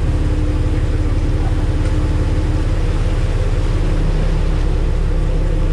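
The inboard engines of a large party fishing boat running steadily under way, a loud low drone with a fast, even pulse.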